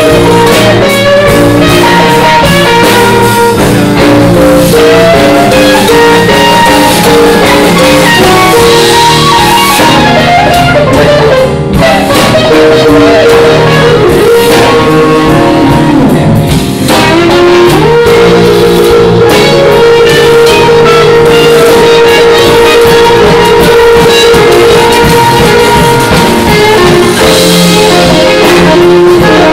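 A live blues band plays a slow blues, with drums under a lead line of long held notes that bend and slide in pitch. The recording is overdriven: the mic gain was set too high and the level stays pinned near full scale.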